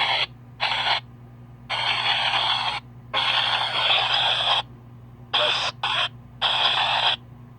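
PXB-07 spirit box sweeping through radio stations: choppy bursts of hissing static and radio fragments that cut in and out abruptly, with short silent gaps between them. A steady low hum runs underneath.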